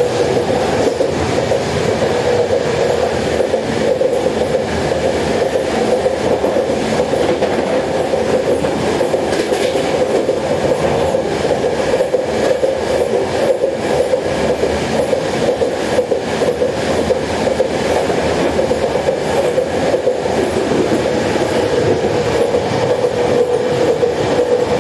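Steady running noise inside a moving train carriage: a continuous rumble and rattle with a steady hum, heard from inside the car.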